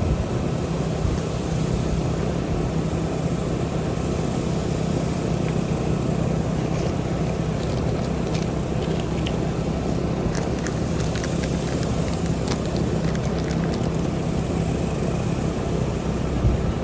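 A steady mechanical drone with a low hum under an even rush of noise, and a few faint light clicks in the middle.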